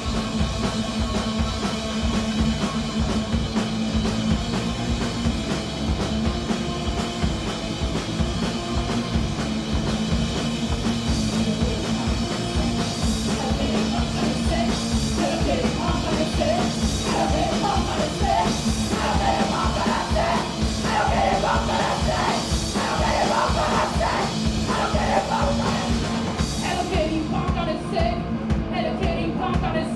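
Punk rock band playing live, with a steady drum beat and full band sound, and yelled, sung vocals coming in about halfway through.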